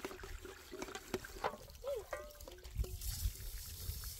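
Water trickling from a hose into a metal pot while hands wash dishes, with light splashing and a few short knocks.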